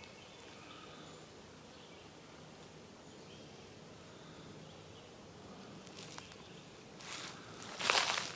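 Quiet woodland ambience with faint insects and distant birds. About seven seconds in, footsteps through dry leaf litter on the forest floor begin.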